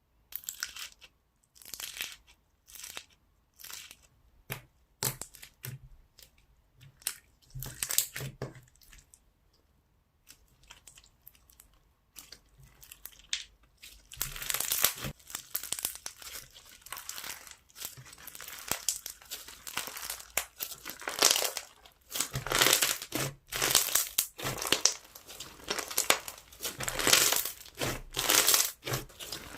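Hands squeezing and pressing 'Garlic Butter Rice' slime, giving crackly, squishy bursts. For the first several seconds the presses come one at a time; from about halfway through they run into dense, continuous crackling.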